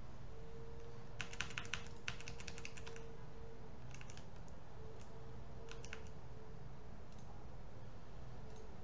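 Computer keyboard typing in short bursts: a run of keystrokes about a second in, then brief clusters near four and six seconds, over a low steady hum.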